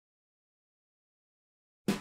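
Dead digital silence, then background music cuts in abruptly near the end with a sharp first hit.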